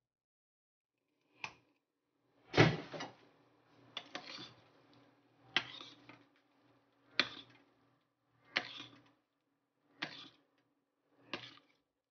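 A metal ladle knocking and scraping against the side of a stainless steel pot with each stirring stroke: about eight clacks roughly one and a half seconds apart, the second the loudest.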